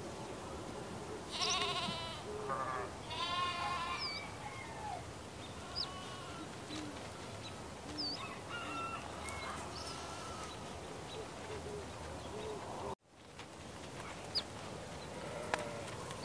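Farmyard ambience: a goat bleats twice, about a second and a half and three seconds in, over scattered short bird chirps and a steady background hiss. The sound cuts out for a moment near the end.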